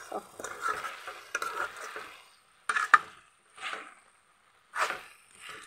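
Spatula stirring a thick curry in a metal kadai: a run of wet scraping strokes against the pan, with one sharp knock about halfway through.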